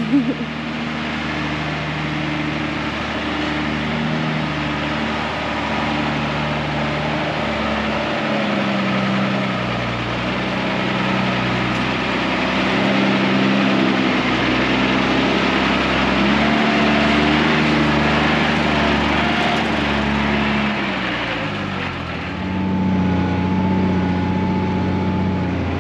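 Unimog expedition truck's diesel engine pulling at low speed along a rough bush track, its note stepping up and down with the throttle and growing louder as the truck draws close. Near the end the revs fall away and the engine is heard from inside the cab, with a thin steady whine above it.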